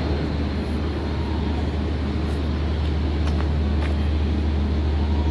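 Steady low rumble of city traffic, with a few faint clicks on top.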